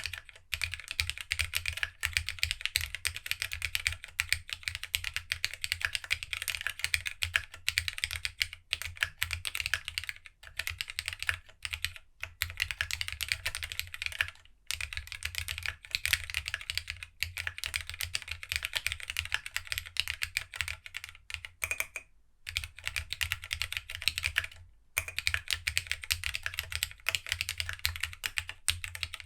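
Fast continuous typing on a plateless GeonWorks W1-AT mechanical keyboard with linear Tadpole 90a switches, no foam and GSA-profile keycaps: dense key clicks and bottom-out clacks, with a few brief pauses.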